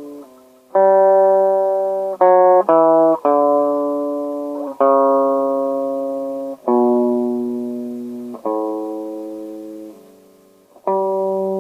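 Guitar playing slow, single plucked notes in G Lydian, each left to ring and fade before the next. It is tuned down roughly a whole step. Two notes come in quick succession about two seconds in.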